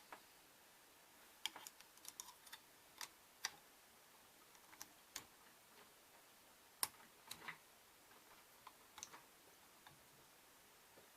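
Irregular clicks and taps of K'NEX plastic parts being handled as the model's gun is fitted into its hand, the loudest click about seven seconds in.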